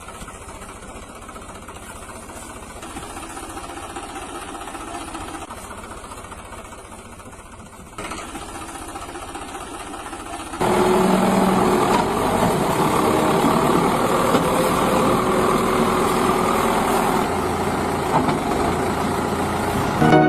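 Vehicle engine sound effects, running steadily. The sound jumps up abruptly about eight seconds in and becomes much louder about ten and a half seconds in.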